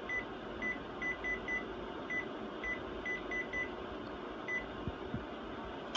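Konica Minolta Bizhub copier's touch panel giving a short, high key-press beep for each character typed on its on-screen keyboard, about a dozen beeps at an uneven typing pace that stop about four and a half seconds in, over a steady low hum.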